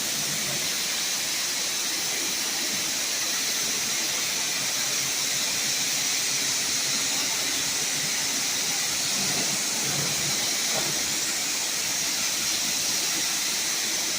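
Steady hiss of a spray wand spraying soap onto the inside of a car wash bay, with a faint low hum underneath.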